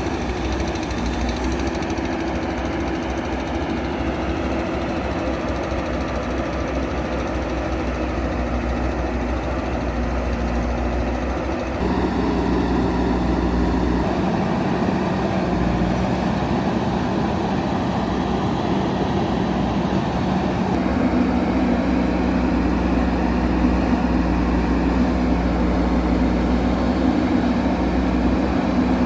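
Diesel engine of a JCB backhoe loader running steadily. About twelve seconds in the engine note changes and grows louder, and it rises a little again later on, as the machine works.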